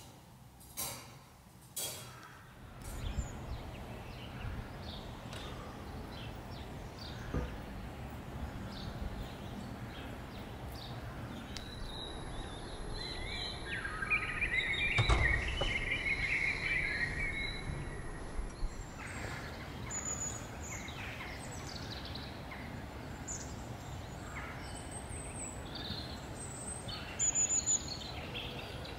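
A few sharp clicks in the first two seconds, then the steady rush of a shallow river flowing over a low riffle, with birds chirping throughout and louder in the middle.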